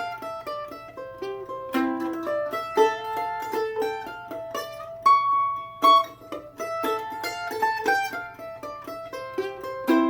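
Background music: a plucked-string tune, mandolin-like, of quick picked notes with one held high note about halfway through.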